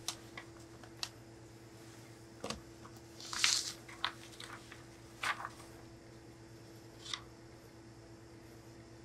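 A sheet of printer paper being picked up and handled, with a crinkly rustle about three and a half seconds in and a few light taps and rustles before and after. A steady faint hum runs underneath.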